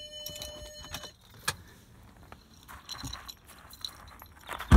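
Park Safe parking sensor sounder giving a steady continuous tone, cutting off about a second in as reverse is disengaged. Clicks and jingling follow, with a loud thump near the end.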